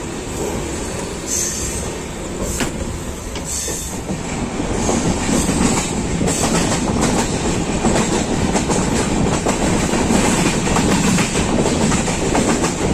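Moving passenger train heard from inside the coach: wheels clattering over rail joints and points, a quick clickety-clack over a steady rush of running noise, growing louder about five seconds in.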